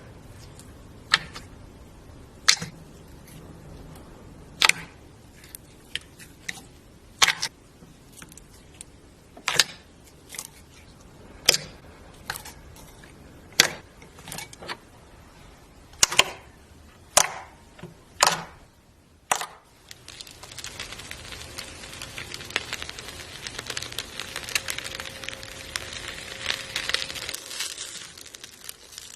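Slime being squeezed and pressed by hand: a series of sharp pops, one every second or two, then about two thirds of the way in a dense, steady crackling that runs until near the end.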